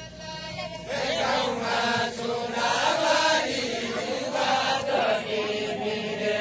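A group of voices chanting a deuda folk song together in a drawn-out, sung line, starting about a second in.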